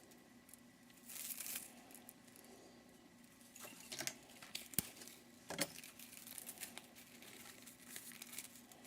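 Crinkling and rustling of stripped cable insulation and wire being handled, with a few light clicks and knocks, the sharpest about five seconds in.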